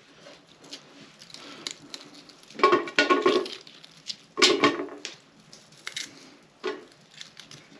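Raw onion pieces broken apart by hand and dropped into an empty stainless steel stockpot. The pot rings out with two louder clunks, about two and a half and four and a half seconds in, amid softer clicks and crackle of onion layers.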